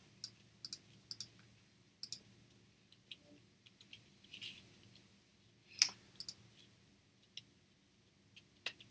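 Faint, scattered clicks of a computer mouse and keyboard, about a dozen short sharp ones at uneven intervals, the loudest a little before six seconds in.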